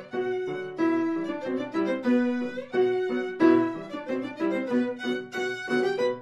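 Background music from a silent-film score: a violin playing a melody of short notes, one after another.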